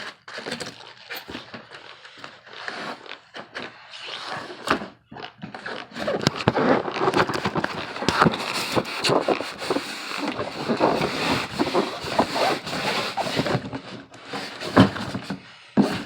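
Cardboard box and plastic packaging scraping, rustling and crackling as a boxed inkjet printer is pulled out, with scattered knocks. The handling is louder and denser for most of the second half.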